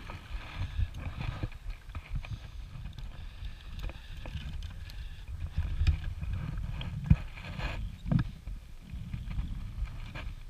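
Low, uneven rumbling of wind and movement on the camera's microphone, with a few sharp clicks and knocks, the loudest about seven and eight seconds in.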